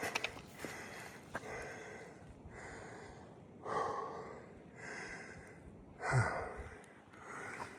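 A hiker breathing hard while walking, one heavy breath about every second, with a few footfalls near the start.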